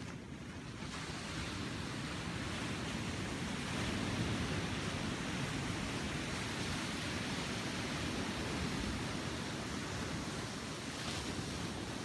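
Small sea waves breaking and washing up on a beach: a steady rush of surf that grows a little louder after the first second.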